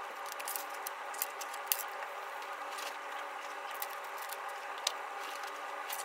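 Light rustling and small scattered clicks of a disinfecting wipe and its packet as a desk is wiped down, over a steady room hum.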